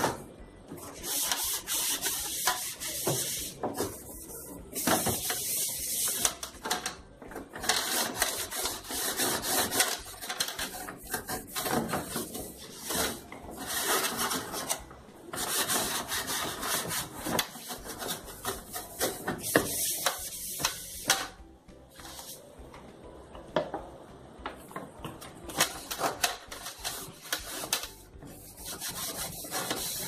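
Hand scrubbing, rubbing back and forth on a surface in runs of strokes a second or two long, with short pauses between them and a quieter stretch a little past the middle.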